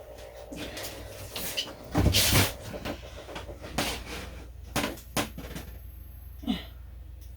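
Knocks and clunks of kitchen things being handled, loudest about two seconds in, with a short squeak near the end.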